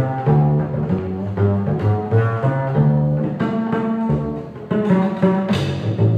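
Solo double bass played pizzicato: a funk groove of quick plucked low notes, with a sharp snapped note near the end.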